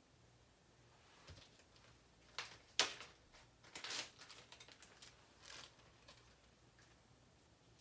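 Clear plastic bag rustling and crinkling as it is handled, in several short bursts, the sharpest about three seconds in.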